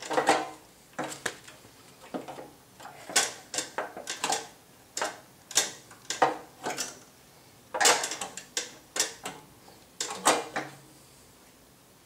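Steel chain cover of a Tru-Cut P-20 reel mower being worked into place over the drive chains: irregular metal clanks, scrapes and rattles, about ten in all with short pauses between.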